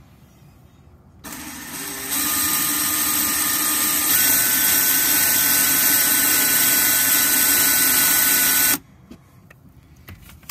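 Cordless drill spinning a metal countersink bit into a screw hole in fibreglass gel coat, tapering the hole's edge so the gel coat won't spider-crack. The motor starts about a second in, gets louder in two steps with its whine jumping up in pitch partway through, and stops suddenly near the end.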